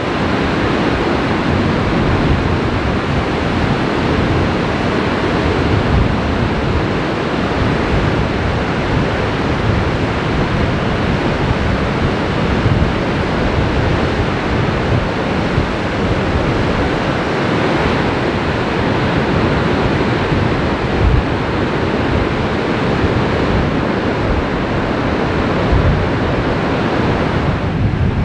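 Ocean surf with wind blowing on the microphone: a steady rushing with a gusty low rumble underneath.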